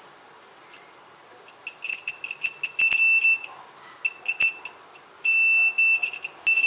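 Extech digital multimeter's continuity beeper sounding a high steady tone as the test probes touch a fuse. It stutters on and off with the probe contact, with small clicks, then holds for about a second near the end, showing that the fuse has continuity and is good.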